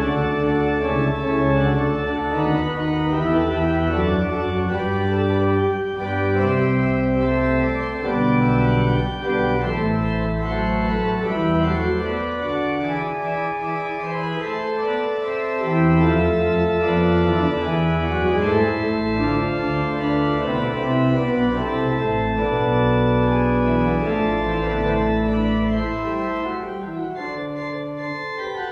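Organ music: slow, sustained chords over deep pedal bass notes, changing every second or two and growing softer near the end.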